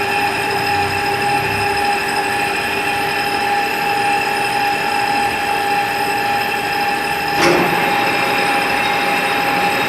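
Motor-driven sharpening disc spinning, a steady high whine over a hiss, with one short knock about seven and a half seconds in.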